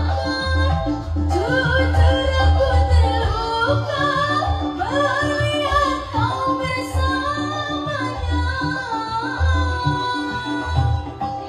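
A song: a solo voice sings a melody with long, bending held notes over a steady beat and a bass line.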